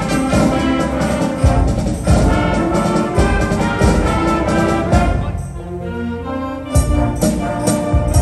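Concert wind band playing, with clarinets, saxophones and brass over steady beats. About five seconds in it drops to a softer, held passage, then comes back loud with accented hits near the end.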